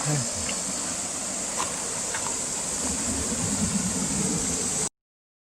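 Outdoor ambience: a steady high-pitched hiss over a low, uneven rumble, with a few faint ticks. It cuts off abruptly to silence near the end.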